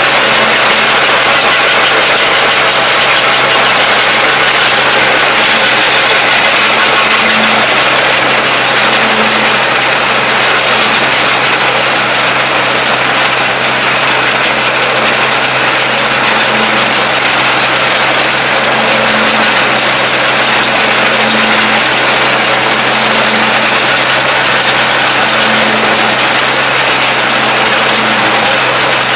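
Kubota half-track tractor's diesel engine running steadily under load, towing a round baler that is picking up rice straw. The baler's pickup and rollers are running, with a faint pulse about every two seconds.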